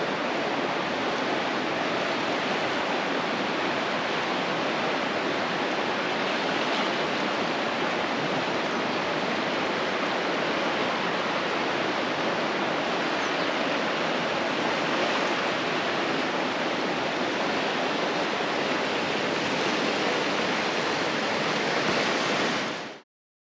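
Strong wind blowing steadily, an even rushing noise with no gaps, which stops abruptly near the end.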